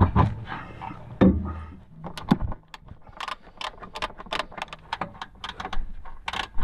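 Hand tools clinking and clicking on metal while a broken rear shock absorber on a Mitsubishi Delica is changed at the roadside: a few knocks at first, then from about two seconds in a quick run of sharp clicks, about four a second.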